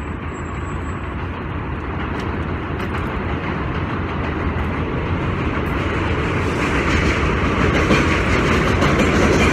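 Loud continuous rumble of a passing vehicle, growing steadily louder toward the end, with light clicks and rattles in it.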